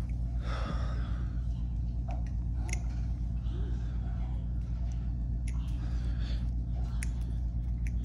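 Balisong (butterfly knife) being flipped by hand, its handles clicking sharply against the blade a few times, over a steady low hum. There is a breathy exhale about half a second in.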